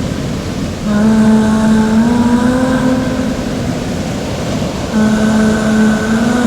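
Experimental sound-art soundscape: a continuous rumbling, machine-like noise bed with a long held pitched tone over it that comes in about a second in and again near the end, each time sliding slightly upward.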